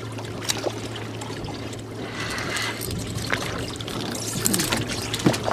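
Small choppy waves lapping and splashing against a boat's fibreglass hull, with a steady low hum underneath.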